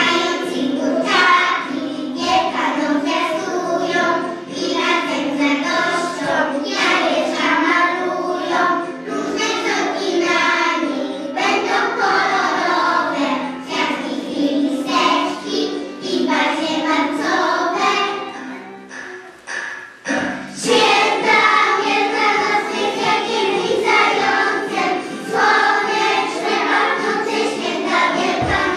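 A group of young children singing a song together over musical accompaniment. There is a brief break about two-thirds of the way through, then the singing picks up again.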